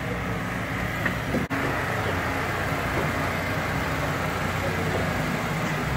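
An engine idling steadily, cutting out for an instant about one and a half seconds in.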